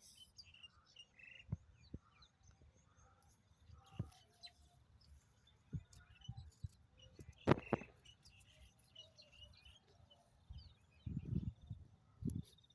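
Faint bird chirps, with scattered knocks and handling noises: a sharp click about seven and a half seconds in, and a few dull thumps near the end.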